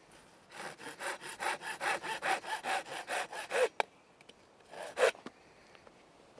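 Hand saw cutting through a thin wooden branch in quick, even rasping strokes, about five a second, for some three seconds. After a brief pause comes one last short, louder rasp about five seconds in.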